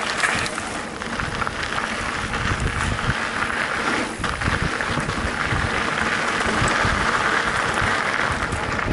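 Mountain bike riding fast over a loose gravel trail: tyres crunching on stones, with rattles and knocks from the bumps, and wind rumbling on the microphone.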